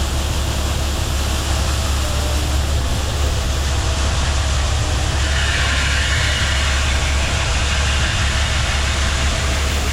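Heavy farm machinery engine running steadily with a deep low hum, and a brighter hiss joining in about halfway through.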